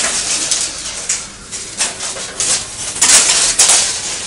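Steel tension wire being handled and rubbed against metal fence posts: irregular scraping and rasping, loudest about three seconds in.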